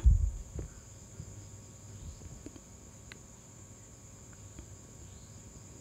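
Handling noise as a scale's power lead is picked up and plugged in: a sharp thump at the start, a smaller knock just after, then a few faint clicks, over a steady high-pitched whine.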